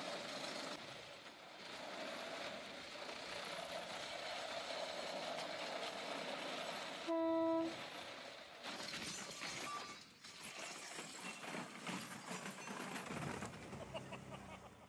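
Small rail cart running along the rails, a steady rattling noise of wheels on track. About seven seconds in, a single short horn blast of about half a second. In the last few seconds, a crackling of branches as the cart pushes into a bush.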